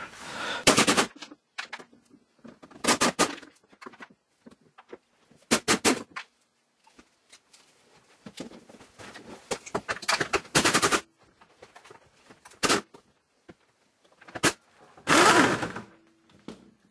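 Impact wrench hammering in a series of short bursts, each under a second long, as it undoes the exhaust mounting nuts or bolts under a BMW E46.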